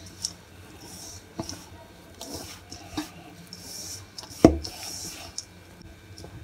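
A hand rubbing and crumbling flour, ghee and curd together in a stainless steel bowl, making soft repeated swishes. There are a few light knocks, and one louder thump about four and a half seconds in.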